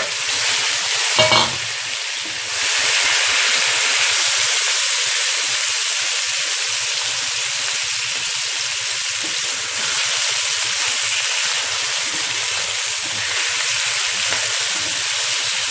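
Part-boiled meat frying with onion and garlic in ghee in a pot: a steady, loud sizzle that grows louder about two and a half seconds in. There is a short knock about a second in.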